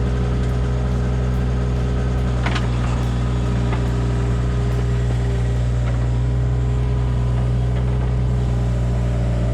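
Hitachi 35U mini excavator's diesel engine running at a steady speed, with a light knock about two and a half seconds in.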